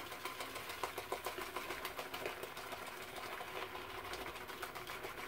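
Omega synthetic shaving brush whipping soap lather in a soup bowl, a fast, uneven run of soft clicks as the bristles work the lather.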